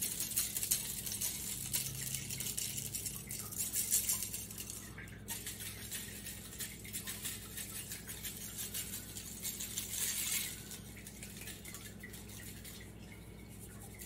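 A shaker of coarse salt-and-pepper brisket rub being shaken over a beef short rib, the granules rattling in the jar and falling onto the meat and foil. The shaking goes quieter about ten and a half seconds in.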